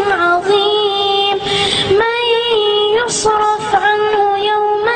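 A child's high voice reciting the Quran in melodic chant (tajwid), holding long, level notes with small ornamental turns at the ends of phrases, broken by a few short hissing consonants.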